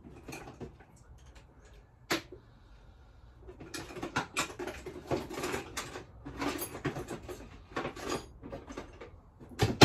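Rummaging through cardboard boxes and loose parts: a sharp knock about two seconds in, then a busy run of rustling, clattering and clicks, and a loud knock near the end.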